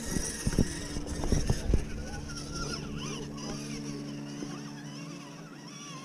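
A steady low motor hum, with several dull thumps in the first two seconds.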